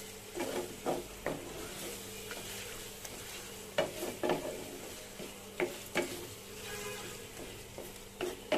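Fried onions and ginger-garlic paste sizzling in hot oil in a nonstick pan, with a spatula scraping and knocking against the pan in irregular strokes as the paste is stirred and sautéed.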